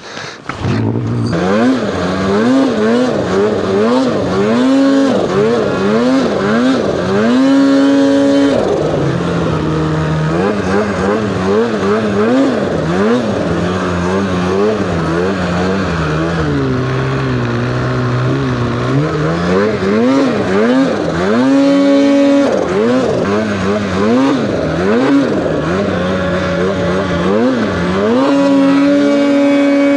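Turbocharged two-stroke snowmobile engine (Polaris Khaos Boost) revving up and down over and over as the sled is ridden through snow, with a few longer held high-rev pulls, about 8 s in, near 22 s and near the end.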